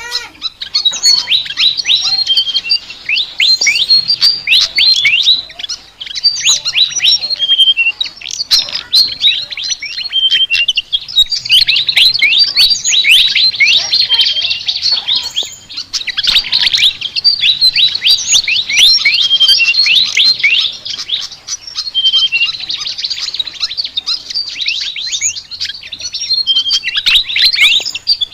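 Sikatan (flycatcher) song: a fast, continuous chatter of high chirps and quick downward-sweeping notes, in runs of several seconds with brief pauses between them.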